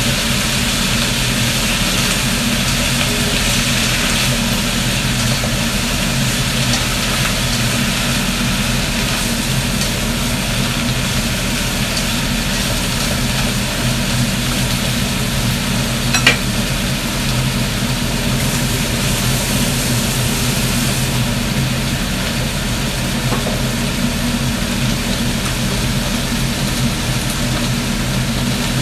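Kitchen range hood fan running with a steady hum, over the hiss of shredded cabbage stir-frying in a wok on a gas burner as a spatula stirs it. One sharp clink about halfway through.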